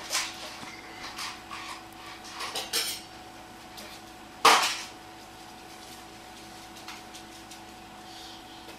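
Small clinks and knocks on a table, then one sharp, loud knock with a brief ring about four and a half seconds in, over a faint steady hum.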